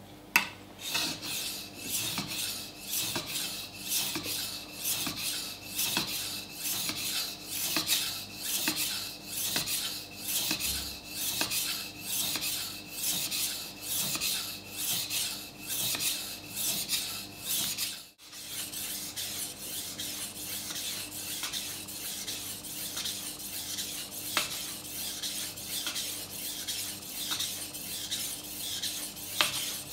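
Kitchen knife blade being sharpened on a wet sharpening stone: a steady rhythm of gritty back-and-forth rasping strokes, a little under two a second. A sharp click comes just after the start. About two-thirds of the way through the strokes break off briefly, then go on softer and more even.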